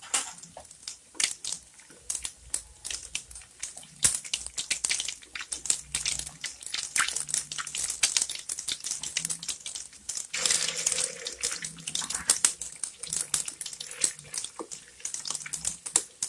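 Pork meatballs deep-frying in a wok of hot oil: a steady, busy crackle of popping and sizzling. The sizzle surges louder for a second or two about ten seconds in.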